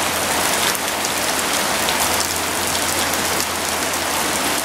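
Heavy rain shower falling steadily: a dense, even hiss of big drops hitting a lawn and wet paving.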